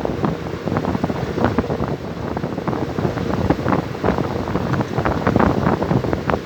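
Lathe running in a workshop: a steady rumbling machine noise with many short, irregular clicks throughout.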